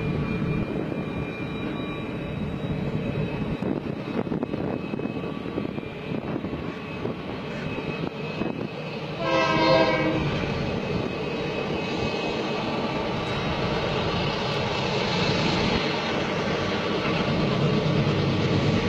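Diesel locomotives rumbling steadily as they pull a train out of a tunnel, getting louder towards the end, with one short train-horn blast about nine seconds in, just as the lead locomotive emerges.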